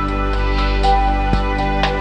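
Instrumental background music: held notes that change from time to time, with a few sharp struck notes over them.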